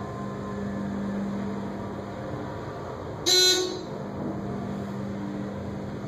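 ThyssenKrupp hydraulic elevator car in motion, a steady low hum from the ride. About halfway through comes one short electronic beep from the car.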